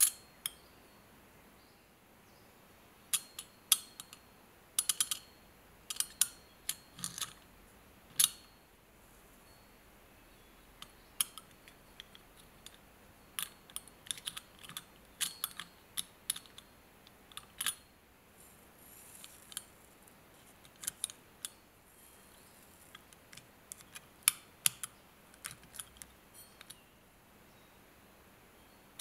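Metal tweezers tapping and clicking as small parts such as washers and gears are set down and positioned inside a metal compass housing: irregular light, sharp clicks, some in quick clusters, with a brief faint scrape about two-thirds of the way through.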